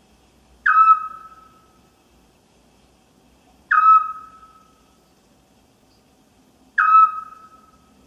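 An owl's single whistled note, given three times about three seconds apart. Each note starts sharply and fades away over about a second.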